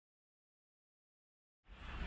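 Dead silence, then a low rumbling noise begins to fade in near the end.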